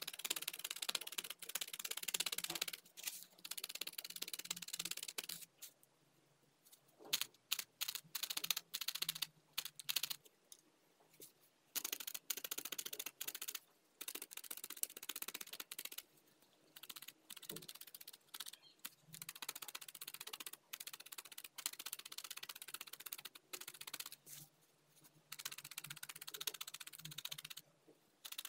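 Felting needle stabbing repeatedly through wool into a foam pad: quiet, rapid scratchy pokes in runs of one to a few seconds, with short pauses between runs.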